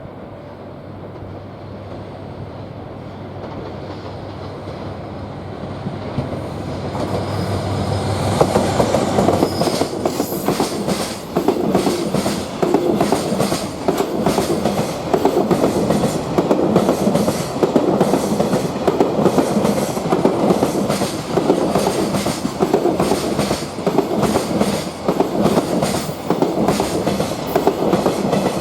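A DF200 diesel-electric locomotive draws near with a low engine drone that grows louder over the first eight seconds or so. Then a long freight train's wagons roll past with a steady clickety-clack of wheels over the rail joints.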